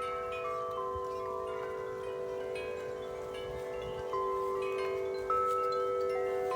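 Wind chimes ringing in the wind. Their low notes overlap and ring on, and fresh strikes come about four seconds in and again a second later.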